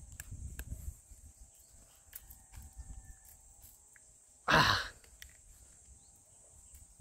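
A man straining to bite through a strand of wire cable with his teeth: faint clicks of teeth and wire, then, a little past halfway, one short, loud breath out with the effort.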